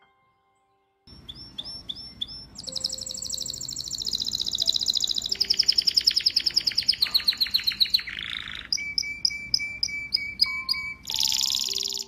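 Domestic canary singing: after about a second of quiet, high repeated notes and fast rolling trills, broken twice by short buzzy rattles in the later part.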